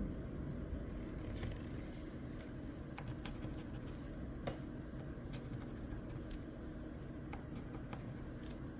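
Scratching the coating off a crossword scratch-off lottery ticket, a steady scraping with small scattered clicks, uncovering letters.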